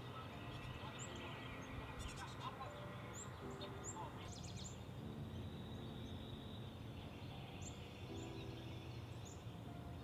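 Soft background music of held notes that change every second or two, with a few short high bird chirps scattered through it over a steady outdoor hiss.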